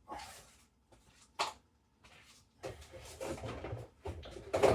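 Items being handled and moved in a fridge: clattering and shuffling of containers, with a sharp click about a second and a half in and a loud knock near the end.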